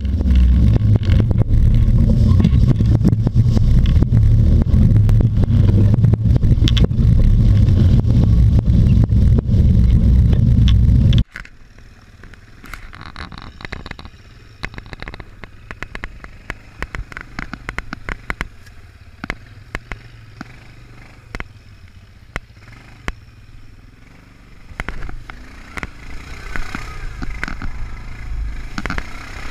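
ATV (quad bike) running over a rough, muddy trail. There is a loud low rumble for about the first eleven seconds, which cuts off abruptly; after that the engine is quieter, under many sharp knocks and clatters from the machine jolting through ruts and mud.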